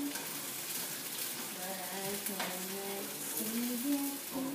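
Food frying and sizzling in a pan on a gas stove, with the odd click of a utensil. A woman hums a tune over it from about a second and a half in.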